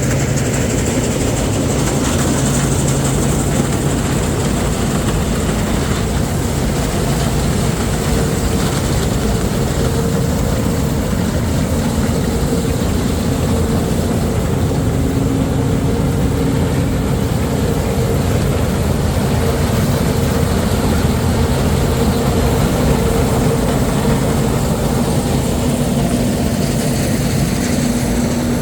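Heavy farm machinery engines running steadily under working load, with engine tones that shift a little in pitch a few times.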